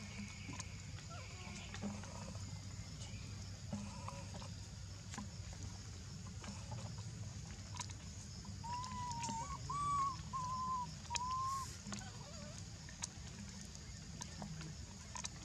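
Baby macaque giving a run of four or five short, thin, pitched whimpering calls about two-thirds of the way in, over a steady high background hum.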